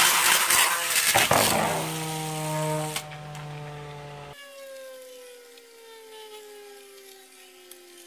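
Infinity Nado spinning top launched into a plastic stadium bowl: a loud noisy rush for about a second and a half, then the top spinning with a steady hum of several tones. About four seconds in the sound changes abruptly to sped-up playback, and the top's whine glides slowly downward as it loses speed.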